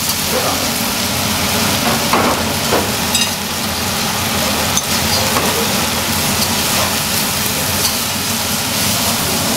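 Meat and vegetable stir-fry (cabbage, bean sprouts, carrot) sizzling steadily in several woks over gas burners, turned with long cooking chopsticks, over a steady low hum.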